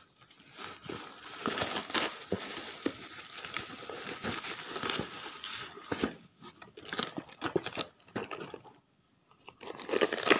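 Plastic packaging crinkling and rustling as a cardboard box is handled and unwrapped, with scattered tearing and small knocks of cardboard. The rustling pauses briefly near the end, then comes back in a short burst.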